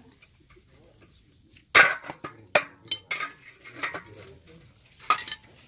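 Metal bar knocking and clinking against metal stands: a run of sharp clanks, the loudest about two seconds in, with lighter clinks after it.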